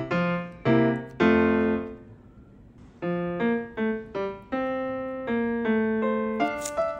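Background music: a piano-like keyboard playing a melody of separate, evenly paced notes, with a short pause about two seconds in before the melody resumes.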